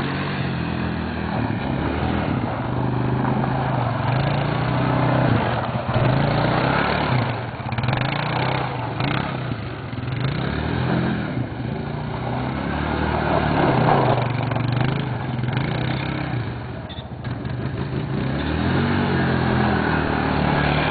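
ATV engine running under varying throttle as the quad is ridden, its pitch rising and falling again and again.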